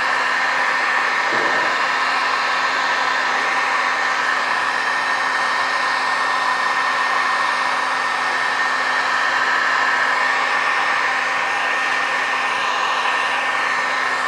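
Handheld electric heat gun running steadily: a constant rush of air with a fixed whine from its fan motor, heating vinyl tint film so it can be stretched around a tail light.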